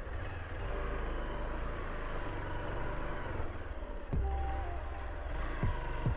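Motorcycle engine running on a rough dirt road, with several sharp knocks from about four seconds in.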